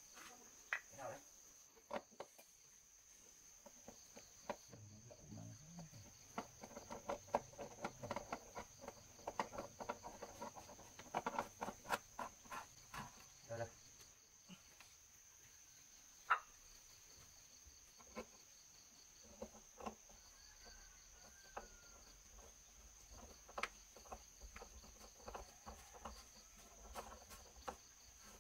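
Wooden sofa legs being twisted by hand into the fabric-covered base of a sofa: scattered short clicks, taps and creaks. Under them runs a steady high drone of insects.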